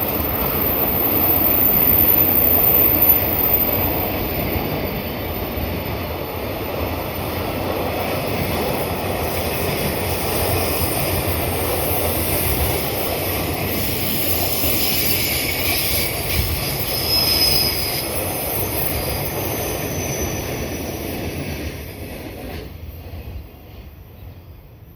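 A train passing at speed, its steady rolling rumble of wheels on rail fading away over the last few seconds.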